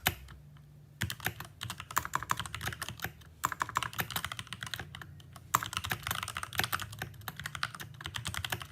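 Mechanical keyboard switches clacking under fast typing, starting about a second in, with a couple of brief pauses. The switches have been sprayed with RP7 spray lubricant instead of proper switch grease, and they still clack: the RP7 has done nothing to quiet them.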